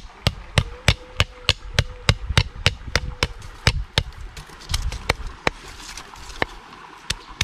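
Knife chopping on a cutting board in steady strokes, about three a second, thinning out to slower, irregular chops after about four seconds.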